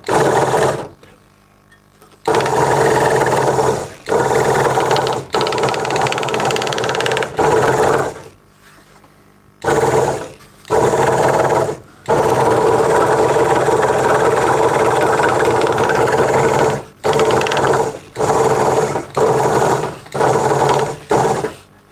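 Craftsman 22-inch scroll saw running with its blade cutting through a thin wooden blank, a steady mechanical chatter like a sewing machine. The sound drops out for a second or so twice and is broken by several short pauses near the end.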